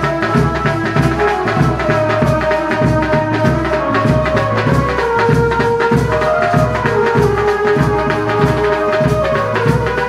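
Background music: a steady, bass-heavy drum beat under a held melody.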